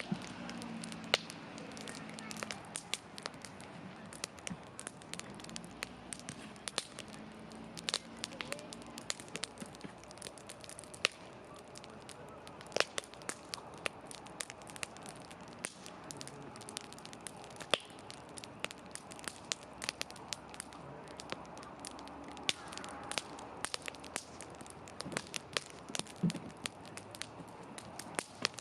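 Wood fire burning in a fire pit, crackling steadily with frequent irregular sharp pops and snaps.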